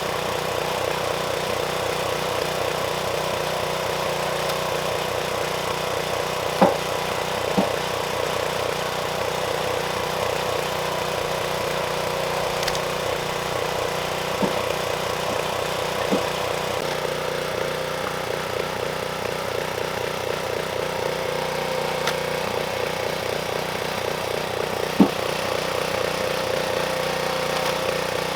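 Small gasoline engine running at a steady speed, the kind that drives a log splitter, with several sharp cracks of wood splitting, two of them loud.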